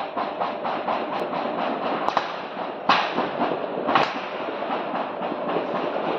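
Sustained automatic gunfire: a rapid, unbroken run of shots about five a second, with a few louder single cracks midway.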